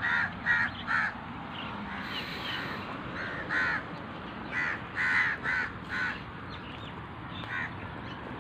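A bird giving short, repeated calls: three in quick succession at the start, then a run of five or so a few seconds in, and one more near the end.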